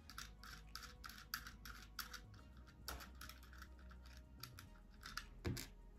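Faint, rapid light clicking, about five clicks a second, as the hex nut and washers are turned off the threaded spindle of a quartz clock movement by hand; the clicks thin out partway through, and a single louder knock comes near the end.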